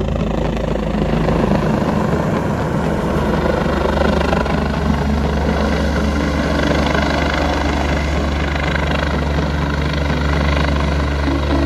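Rescue helicopter flying low overhead: a loud, steady rotor and engine drone as it descends toward the road.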